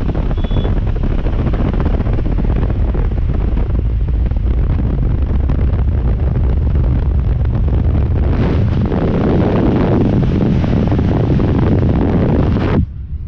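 Heavy wind buffeting on the microphone with road and engine noise, from inside a car running flat out. It cuts off suddenly near the end.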